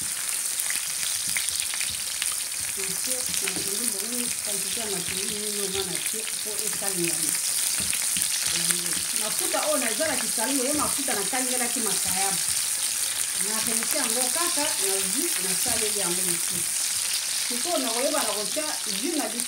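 Sliced onion rings sizzling steadily in hot oil in a stainless steel frying pan, stirred and turned with a silicone spoon.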